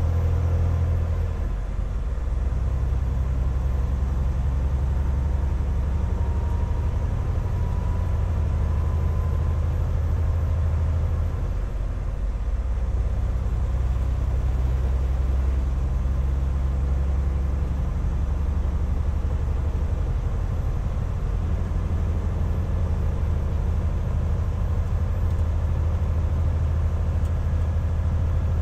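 Semi truck's diesel engine pulling steadily as the truck gathers speed. Its low drone breaks briefly twice, about two seconds and about twelve seconds in, as it shifts up.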